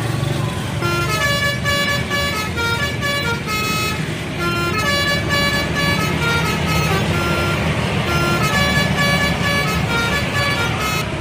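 Indonesian bus telolet horn, a set of tuned air horns, playing a fast melody of short stepped notes. It starts about a second in and stops just before the end, over a vehicle's low engine noise.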